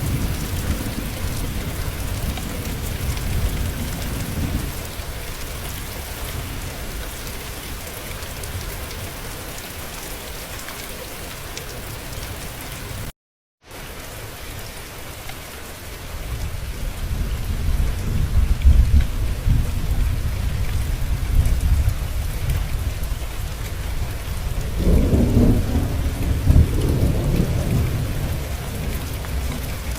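Steady rain with rolling thunder: a rumble in the first few seconds, then a longer, louder rumble from about halfway to near the end. The sound drops out completely for a split second just before halfway.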